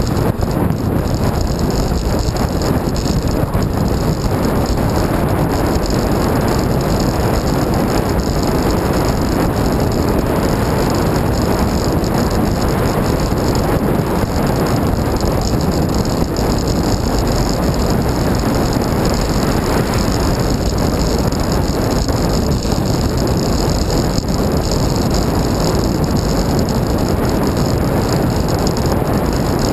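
Steady rush of wind on the microphone and tyre noise from a bicycle riding along a road.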